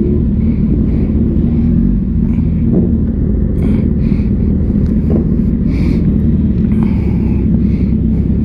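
Suzuki sport bike's engine running steadily at idle or low speed, a constant low rumble heard from the rider's seat.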